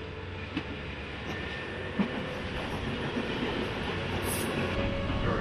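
Subway train running along the tracks below, its rumble growing gradually louder as it comes closer, with two sharp clacks about half a second and two seconds in.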